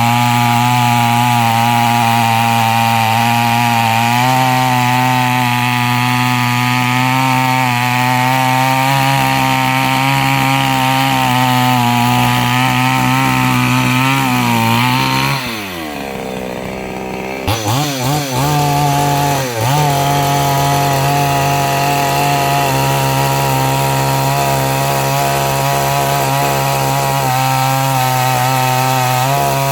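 Chainsaw engine running at high speed, cutting wood. About halfway through, the engine note falls away to a low idle for about two seconds, then is revved back up in a few quick blips and runs steady again.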